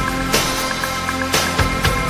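Recorded 1980s pop-rock song: a steady drum beat with a strong hit about once a second over held chords and a bass line.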